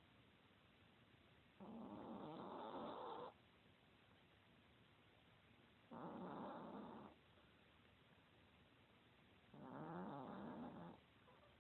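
Chihuahua snoring: three snores about four seconds apart, each lasting a second or so.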